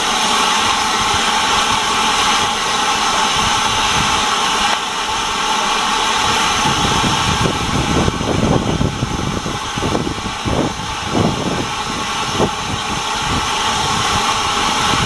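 Steam hissing loudly and steadily from standing steam locomotives, SR Q class 0-6-0 No. 30541 and a second engine behind it. From about seven seconds in, irregular low rumbles and thuds come through the hiss.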